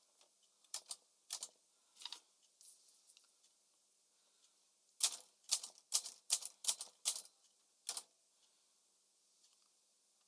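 Smith-Corona Calypso manual typewriter being typed on: a few scattered keystrokes, a pause of about three seconds, then a quick run of about eight strikes before the typing stops.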